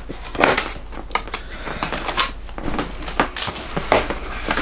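Scissors cutting the strap around a cardboard shoebox, then the box being handled: an irregular run of sharp snips, clicks and scrapes.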